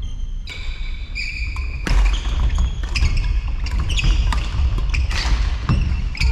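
Badminton rally: rackets striking the shuttlecock with sharp clicks about once a second, and shoes squeaking on the court floor, over a low steady rumble.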